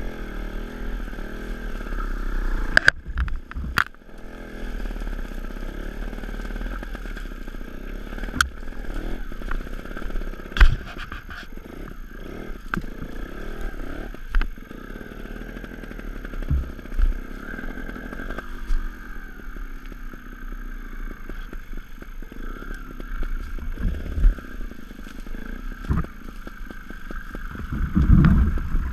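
Sherco 290 ST trials motorcycle's two-stroke single-cylinder engine revving up and down at low speed, with many sharp knocks and scrapes along the way.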